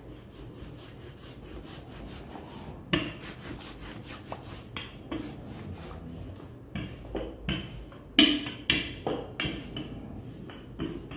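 Kitchen work: irregular rubbing strokes and light knocks against a hard surface, a little louder after about eight seconds.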